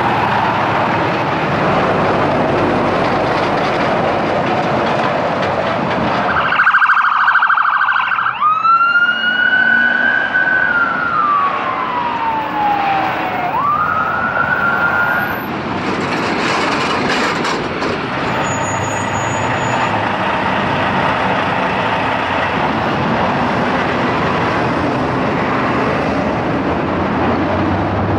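Ambulance siren over steady heavy highway traffic: about six seconds in, a short buzzy horn blast, then the siren winds up, wails slowly down and rises again before fading under the traffic.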